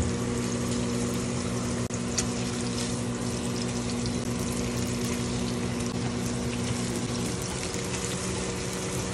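Egg-battered meat slices sizzling steadily in oil in a nonstick frying pan, with a few sharp clicks from metal tongs. A steady low hum runs underneath.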